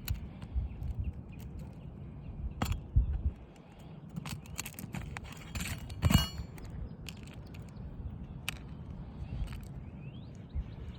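Scattered clicks, scrapes and metallic clinks of a roofer's tool working nails out of asphalt shingles, the loudest clink about six seconds in with a brief ring. Wind rumbles on the microphone, and a bird chirps faintly near the end.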